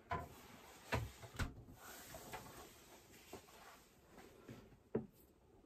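Fridge door being swung shut: a few dull thuds and knocks in the first second and a half, and one more knock about five seconds in.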